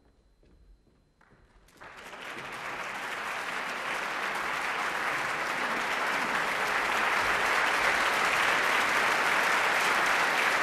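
Concert audience applauding: the clapping breaks out about two seconds in after near quiet and builds over several seconds to a steady, full round of applause.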